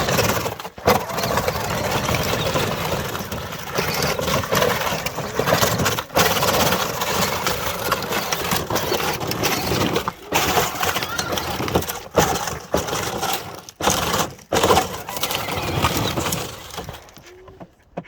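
A Power Wheels Jeep Hurricane ride-on toy running on a 20-volt battery: its electric drive motors and gearboxes drone while the tires grind over rocks. The sound cuts out briefly several times and dies away near the end.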